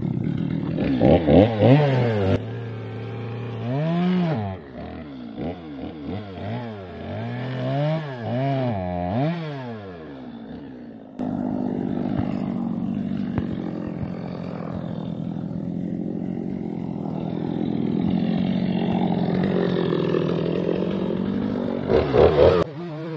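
Gas chainsaw revving in a series of rising and falling blips. About halfway through it settles into steady running under load as it cuts into a large log, then revs up and down again near the end.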